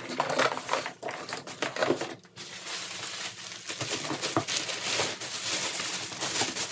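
Plastic packaging and bubble wrap crinkling and rustling as it is handled, with a sharp tap a little past the middle.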